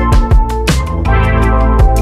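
Electronic background music with a heavy bass line and a steady drum beat.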